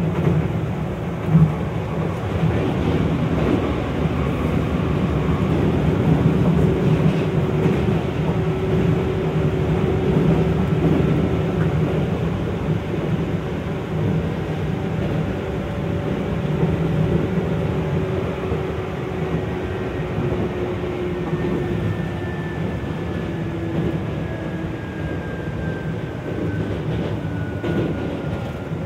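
Running sound inside an Izukyu 2100 series electric train, a low-tone car with Toyo Denki TDK806-series traction motors that sound like the JNR MT54B/D. A steady motor and gear whine rides over the wheel and rail rumble, with one sharp knock about a second in. In the second half the whine falls slowly in pitch as the train slows.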